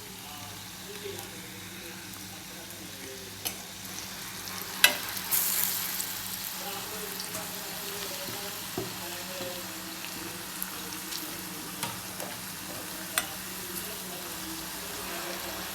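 Batuk, black-lentil fritters, deep-frying in hot oil with a steady sizzle. A few sharp clicks cut through it, the loudest about five seconds in, followed by a brief louder surge of sizzling.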